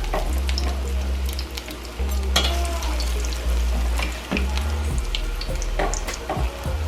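Salmon cakes frying in hot oil in a pan: a steady sizzle, with a few sharp clicks.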